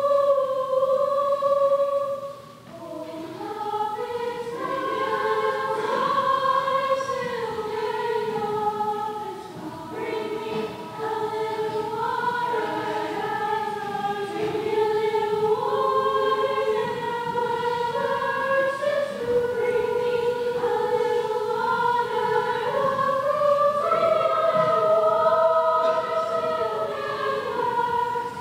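A choir singing in harmony, with long held notes.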